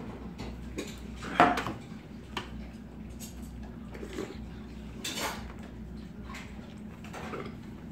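Metal tableware clinking: a metal makgeolli bowl is set down with a sharp, briefly ringing clank about a second and a half in. A metal spoon then clinks and scrapes against a metal rice bowl and tray a few more times, over a low steady hum.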